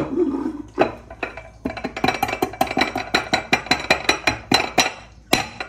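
Fingers tapping quickly on the base of an upturned ceramic bowl on a plate: a run of light clinking knocks, about five a second, each with a faint ring, to loosen the firmly pressed fried rice so it comes out as one shaped mound. It opens with a single knock as the bowl and plate come down after being flipped.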